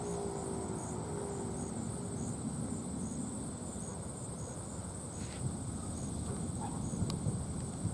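Federal Signal 2001 siren winding down: a falling tone that fades out about two seconds in. Under it, insects keep up a steady high trill with regular short chirps over a low background rumble.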